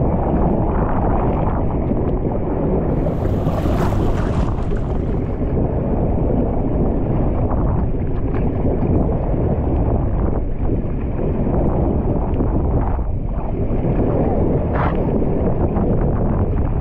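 Water rushing under an inflatable raft as it slides down a WhiteWater West family raft slide, with wind buffeting the microphone; a brief, hissier surge of water about three seconds in.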